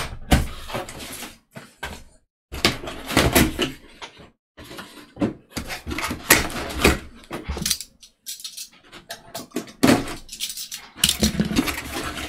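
Cardboard model-kit box and its cardboard inner tray being handled and lifted: an irregular run of scrapes, rustles and knocks, with short pauses.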